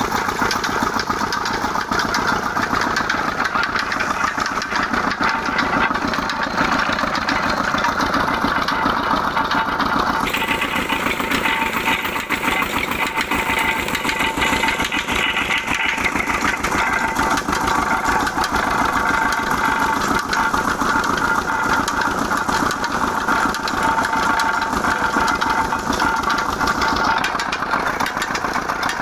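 Stationary diesel engine running steadily with a fast even beat, driving a sugarcane crusher through a flat belt. The crusher's geared rollers add a grinding clatter as cane is fed through them.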